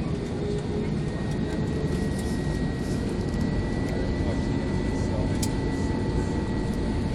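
Airbus A320 jet engines and airflow heard from inside the cabin: a steady deep rumble and hiss, with a thin high engine whine that comes in about a second in and creeps slightly up in pitch.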